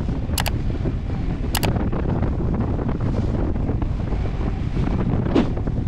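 Strong wind buffeting the microphone over the wash of a sailboat moving through choppy water. Two short sharp clicks come about half a second and a second and a half in, and a fainter one near the end.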